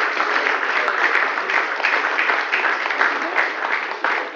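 Audience clapping steadily, many hands together.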